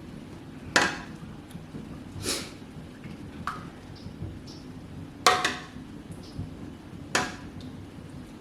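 Kitchenware clinking and knocking: about five sharp, separate strikes spread across a few seconds, with the loudest about a second in and twice more near the end, over a low steady background hum.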